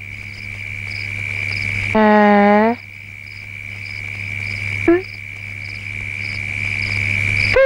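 Crickets chirring at night in a steady high trill, with a faster, higher chirp pulsing about twice a second over a low steady hum that slowly grows louder. About two seconds in, a short, loud hum sounds and rises in pitch at its end, with a brief rising sound again near five seconds.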